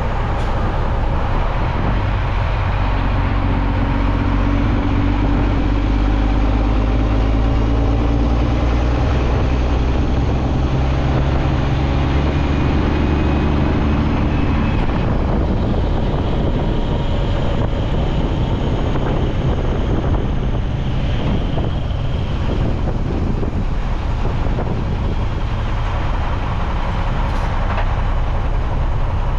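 Heavy diesel machinery engine running steadily, working hard through the first half with a strong droning tone, then easing off about halfway through.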